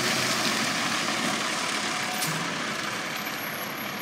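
International rear-loader garbage truck's diesel engine running as the truck rolls past on a wet road and slows to a stop, the sound gradually easing off, with one brief sharp click about halfway through.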